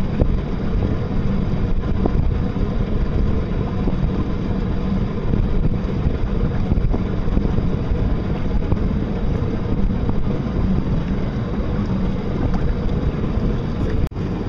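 Steady wind rumble on the microphone, with water rushing past the hull of a small electric boat under way; it cuts out briefly near the end.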